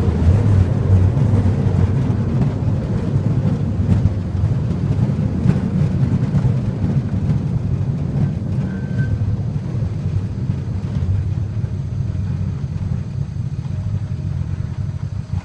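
Low, steady rumble of the open-air tourist rail cart running on the line, slowly easing off, then dropping away sharply at the very end.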